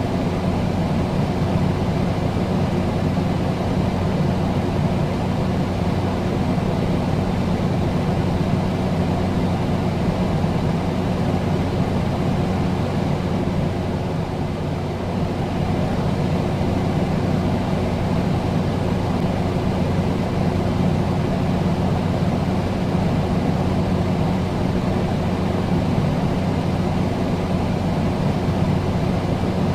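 Steady low droning hum under a hiss of noise, unchanging throughout, with a deep tone and its octave standing out.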